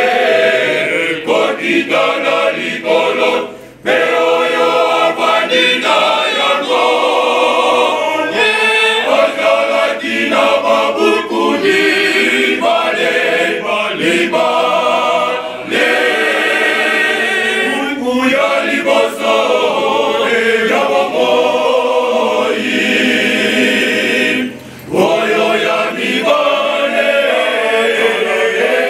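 A choir of men's and boys' voices singing together, with two short breaks between phrases, about four seconds in and again near the end.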